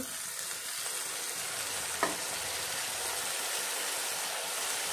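Hot oil in a kadhai sizzling steadily as freshly washed, finely chopped fenugreek leaves are tipped in on top of frying potatoes, with a single light knock about two seconds in.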